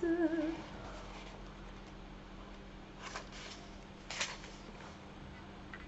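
A woman's sung, wavering voice trails off in the first half second. Then a book's pages are leafed through, with two short paper rustles about three and four seconds in.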